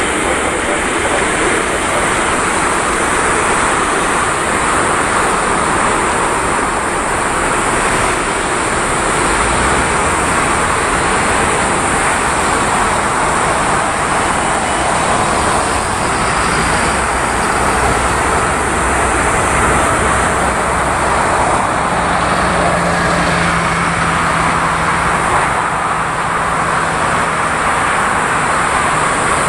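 Jet engines of an Airbus A380 running at taxi power: a steady rush of noise with a constant high whine over it, and a low hum that joins about three-quarters of the way through.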